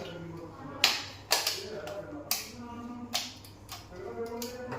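A voice talking, cut by about six sharp clicks or taps spread over a few seconds.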